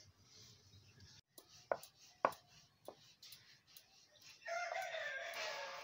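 A rooster crowing once, one long call of about two seconds starting near the end. A few sharp clicks come before it.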